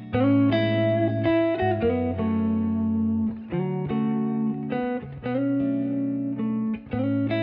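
Background music: guitar playing a run of plucked chords.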